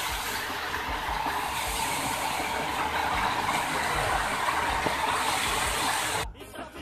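Waterfall's falling water rushing steadily into its pool, an even rush of noise; it drops out for about half a second near the end.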